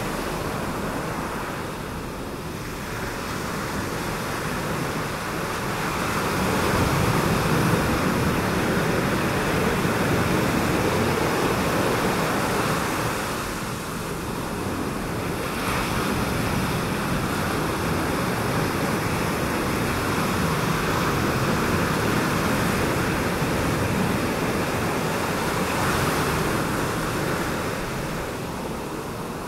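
Ocean surf breaking and washing over a reef, with some wind. It swells and eases in slow surges, dipping briefly a few times.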